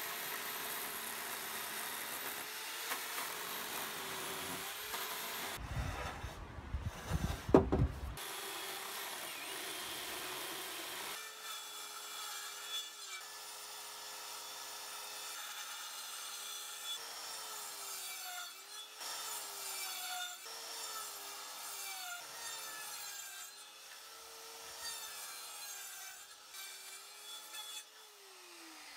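Power saws cutting timber. First an electric chainsaw runs steadily, with a sharp knock about seven seconds in. Then a circular saw makes a series of cuts into an old, resinous pine beam, its motor note dipping each time the blade bites and recovering between cuts, then winding down near the end.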